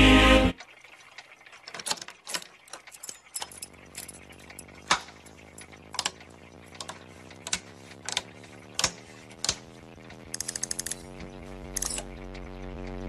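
Choir music cuts off about half a second in. Then toggle switches click one at a time as a hand switches on a vacuum-tube equipment panel. A low electrical hum comes in about three and a half seconds in and slowly grows louder as the power comes up, with a quick rattle of clicks about ten seconds in.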